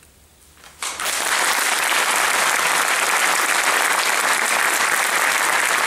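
Audience applauding: it breaks out just under a second in after a brief hush and keeps going steadily.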